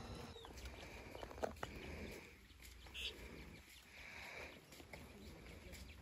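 Faint animal calls repeating several times, with a couple of sharp clicks about a second and a half in.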